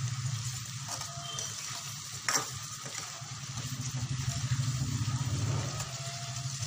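Guar beans (cluster beans) and potatoes sizzling in a pan on a gas stove as they are stirred with a spatula. There is one sharp knock of the spatula against the pan a little over two seconds in.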